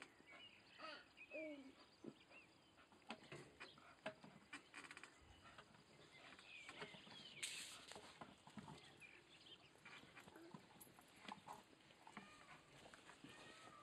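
Bull terrier whining faintly in short, wavering cries, with scattered clicks and scratches from its claws and chain collar. A brief rustling burst comes about halfway through.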